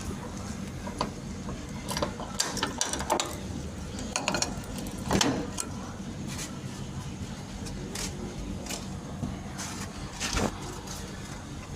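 Irregular mechanical clicks and clatters over a low steady hum.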